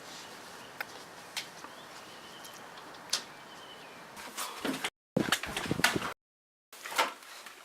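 A few sharp clicks and knocks, then a flurry of clattering knocks in the second half, cut twice by abrupt drops to dead silence where the footage is spliced.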